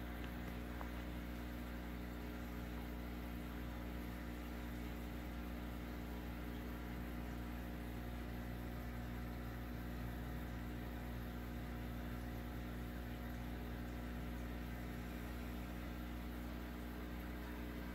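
Aquarium equipment running: a steady low hum made of several fixed tones over a faint hiss, unchanging throughout.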